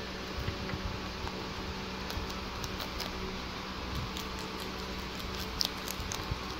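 Baby rabbits chewing and nibbling leafy herb stems: small crisp clicks and crunches scattered irregularly, more of them in the second half, over a steady background hum.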